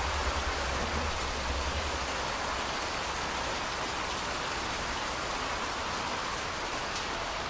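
A steady hiss of rain, with a low hum underneath that fades out in the first couple of seconds and a faint high tone coming in near the end.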